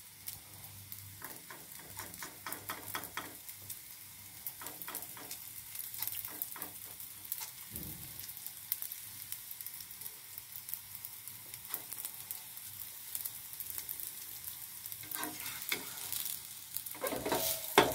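Oil sizzling and crackling steadily under a naan frying in a nonstick frying pan. Near the end come a few louder scrapes and knocks as a wooden spatula goes under the bread.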